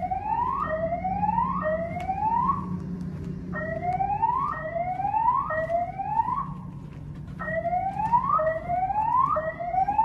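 Fire alarm voice-evacuation speakers sounding the whoop tone in a code-3 temporal pattern: three rising whoops about a second apart, a pause of about a second, then the next three, three rounds in all. A steady low hum runs underneath.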